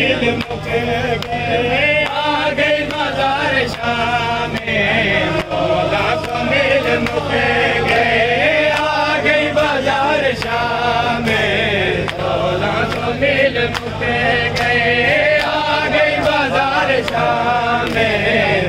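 A group of men chanting a noha (mourning lament) together, with sharp slaps from matam chest-beating keeping time underneath.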